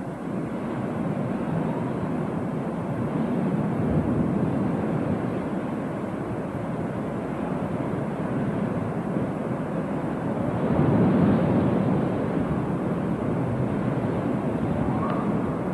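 Ocean surf breaking on the beach: a steady rushing wash that swells about four seconds in and again, louder, about eleven seconds in.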